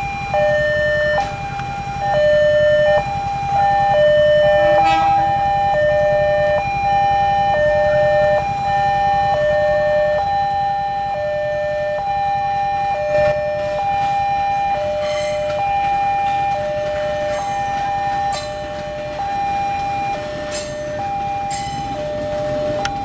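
Railroad level-crossing warning alarm sounding a two-tone electronic hi-low signal, alternating between a higher and a lower pitch about every three-quarters of a second, warning that a train is coming. Under it a low rumble from an electric commuter train, with sharp clicks in the second half.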